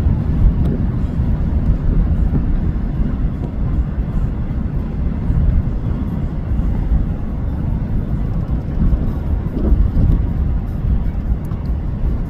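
Steady low rumble of road and wind noise from a moving car.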